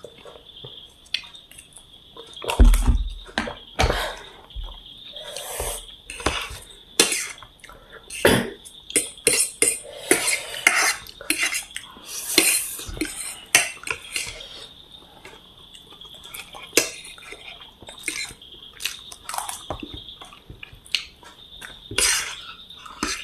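Eating a plate of chow mein noodles close to the microphone: cutlery clicking and scraping on the plate in quick irregular strokes, with a heavy thump about two and a half seconds in.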